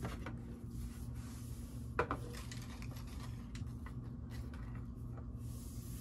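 Faint handling noise of die-cut paper pieces and a clear plastic storage tray: light rustling and small clicks, with one sharper click about two seconds in. A steady low hum runs underneath.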